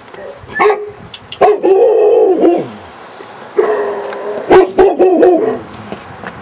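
Great Swiss Mountain Dog barking: a short bark, then long, drawn-out barking calls about a second each, one trailing off downward in pitch, with a few sharp knocks in between.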